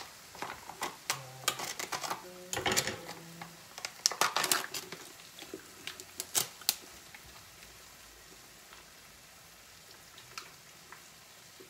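Kitchen handling noises: a quick series of clicks, knocks and clatters of containers and utensils being handled, busiest in the first six or seven seconds, then dying down to a few faint ticks.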